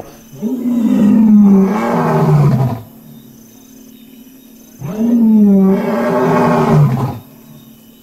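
A male lion roaring close by: two long, loud roars, each rising briefly and then sliding down in pitch, separated by a pause of about two seconds.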